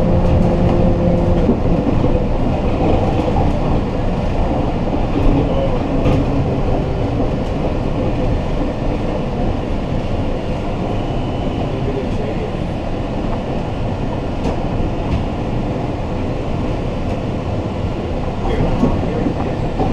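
Rail vehicle running steadily, a continuous rumble, with a few steady hum tones for about the first second and a half.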